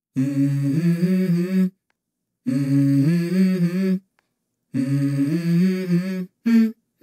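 Background music: a wordless vocal melody of held notes in three phrases of about a second and a half, with short silences between them and a brief extra note near the end.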